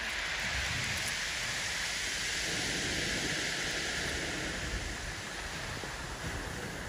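Waves washing over a shingle beach: a steady hiss that swells at the start and slowly fades toward the end, with a low rumble underneath.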